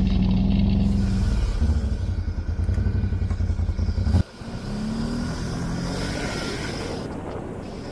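TGB Blade 1000 ATV engine running under way, heard from the rider's seat. Its loud, steady note cuts off suddenly about four seconds in. A fainter rising whine and steady road noise follow.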